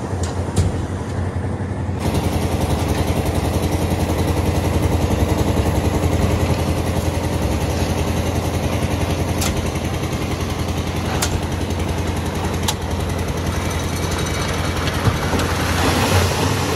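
The engine of a concrete mixer and bucket hoist runs steadily with a low hum, with a few sharp knocks. Near the end, a rushing noise rises as the hoist bucket tips wet concrete out onto the roof-slab reinforcement.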